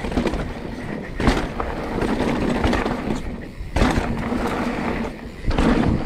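Mountain bike tyres rolling and rattling down a rocky dirt trail, with a few sharp knocks as the bike drops over rock ledges.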